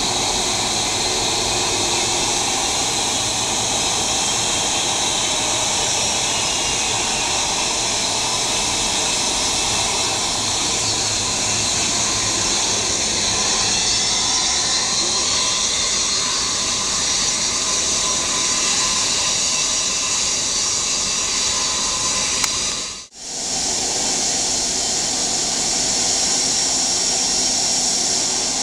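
Jet engines of a four-engined Airbus A340-300 at high power on its takeoff roll: a steady loud rush with a thin whine over it. About 23 seconds in it breaks off abruptly and gives way to the steady running of a Boeing 757 freighter's engines as it taxis.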